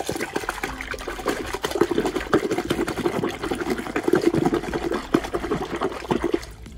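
A hand churning soapy water in a plastic wash bucket: fast, irregular splashing and sloshing that whips car shampoo into suds. The splashing stops just before the end.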